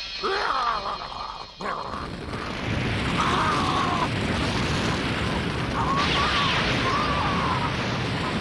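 Animated battle sound effects: a short wavering creature cry, then a loud steady rushing roar like a sustained blast, with shrill wavering cries over it twice.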